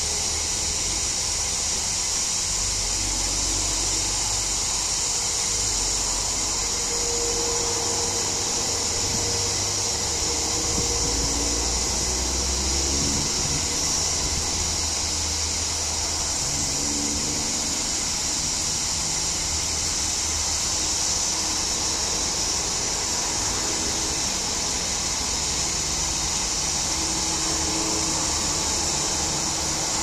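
A chorus of cicadas makes a steady, unbroken high buzz. A low rumble comes and goes underneath, heaviest about ten to fourteen seconds in.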